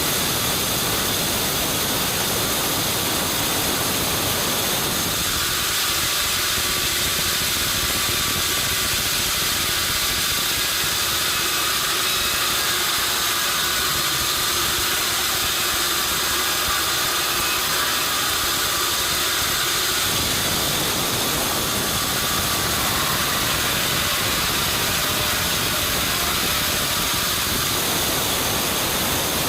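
Sawmill running steadily, with its motor and saw making a loud, even noise. The lower part of the sound thins out from about five seconds in until about twenty seconds in.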